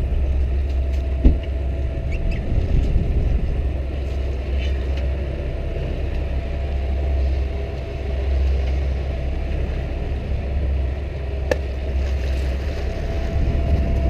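Fishing boat's engine running at idle, a steady low rumble, with a sharp knock about a second in and a small click near the end.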